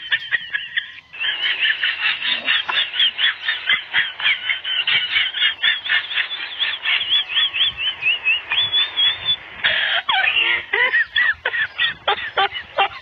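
Puppies squealing and yelping while play-fighting: quick high-pitched squeaks, several a second, that turn more ragged and mixed near the end.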